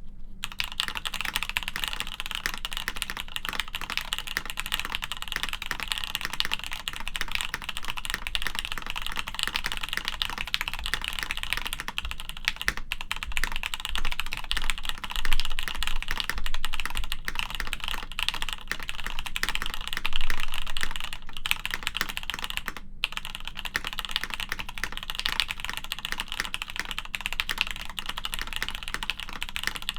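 Fast, continuous typing on a Keebox M0110 mechanical keyboard built plateless with stock Gateron UHMknown switches and Alephkey keycaps: a dense, even stream of key clacks, with a few louder stretches in the middle and a brief break about three quarters of the way through.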